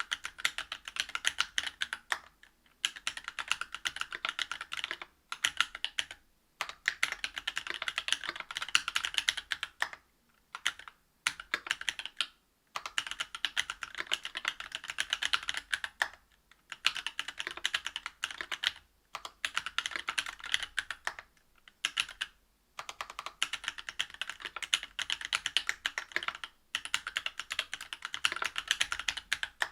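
Whale 75 mechanical keyboard with stock Cannonkeys Lilac linear switches (62 g), a brass plate and GMK keycaps, typed on quickly. The keystrokes come in runs of a few seconds with short pauses between them.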